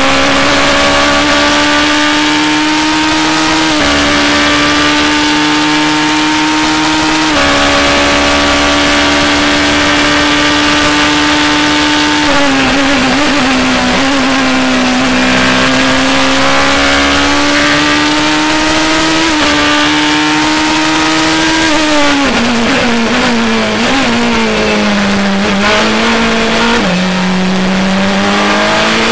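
Lola-Judd LMP2 prototype's V8 race engine heard from inside the cockpit at racing speed. Its pitch climbs through the gears with quick dips at upshifts, falls through several downshifts under braking in the second half, and picks up again near the end.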